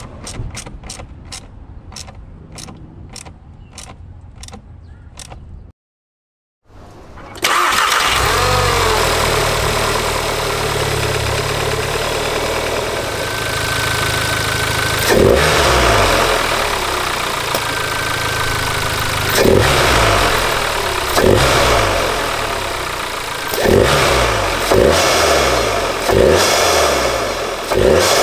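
A hand ratchet clicks about twice a second for the first six seconds. After a short break the MK7 Golf R's turbocharged 2.0-litre four-cylinder starts and runs, revved in short blips several times in the second half, with a whistling whine at times, breathing through a newly fitted APR PEX open intake.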